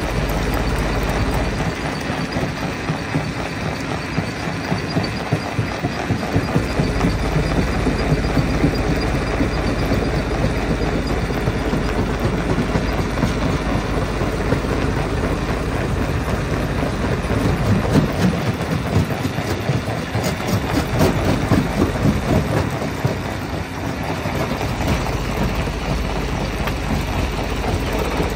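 Rock crusher running, with a constant dense clatter and grinding of rock being broken up over the steady machine noise, and a run of louder knocks about eighteen to twenty-two seconds in.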